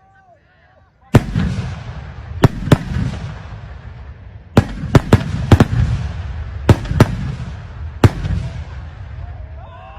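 Firecrackers going off: a loud bang about a second in, then a string of about nine more sharp bangs at uneven gaps, some in quick pairs, with a rumbling echo between them.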